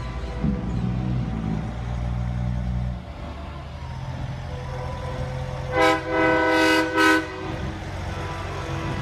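A truck horn blown three times about six seconds in, short, long, short, over the low, steady rumble of truck engines.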